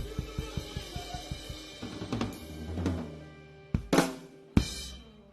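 Live rock band's drum kit finishing a song: a quick steady beat on bass drum and snare, a short fill, then loud closing hits with crash cymbals ringing out near the end.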